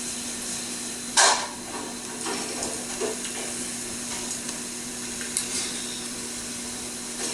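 A person drinking from a freshly opened aluminium can of fizzy malt drink, with a short, loud knock about a second in and a few faint clicks of the can later, over a steady hiss.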